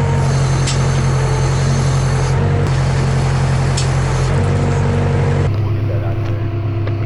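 A large engine running steadily with a low, even hum. The hum changes character abruptly about five and a half seconds in, with the engine still running.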